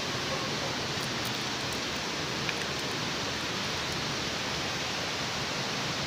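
Steady rushing of flowing river water, an even hiss with no distinct events.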